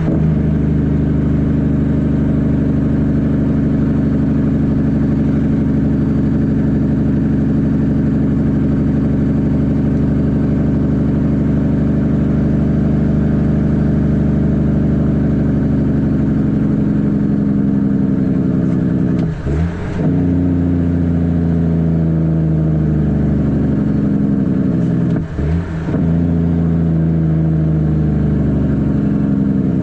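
Caterpillar C13 diesel engine in a Kenworth W900B dump truck running steadily under load. In the last third it climbs in pitch and is cut by two brief gear shifts, each followed by the note climbing again.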